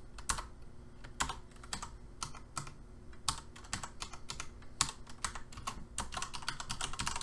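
Typing on a computer keyboard: irregular single keystrokes with short pauses, and a quicker run of keystrokes near the end.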